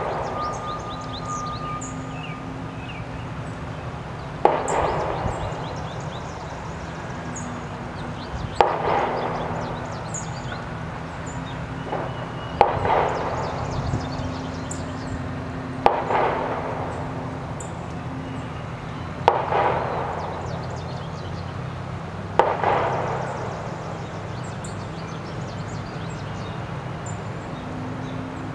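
Six heavy knocks, evenly spaced about every three and a half seconds, each trailing off in a short echo, with faint high chirps of small birds between them.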